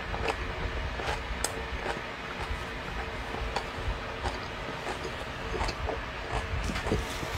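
Eating sounds: a man chewing a bossam wrap of boiled pork in a napa cabbage leaf, with irregular small clicks and smacks, over a steady low rumble and faint hum.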